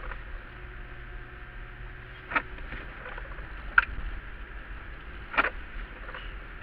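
Steady low engine and road rumble inside a Toyota 4x4's cabin as it drives slowly along a rough gravel track, with three short sharp knocks spaced about a second and a half apart.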